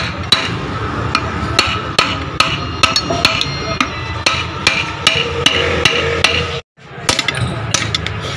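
Hammer blows on metal in a steady rhythm, about two to three a second, each with a short metallic ring, over a steady low hum; the sound cuts out for a moment near the end.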